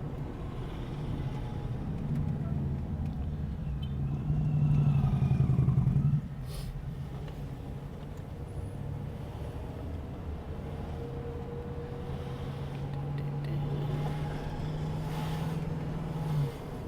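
Camper van running at road speed while towing a trailer, heard from inside the cab: a steady engine and road drone with a low hum that swells for a couple of seconds and drops off sharply about six seconds in, then holds steady again until it cuts off shortly before the end.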